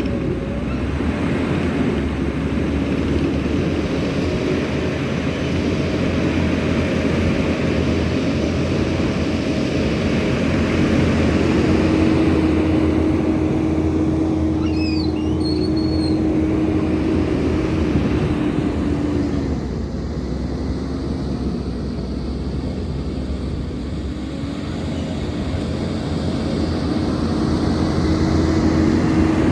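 Tracked skid steer's diesel engine running steadily, with a higher steady tone over it that comes and goes.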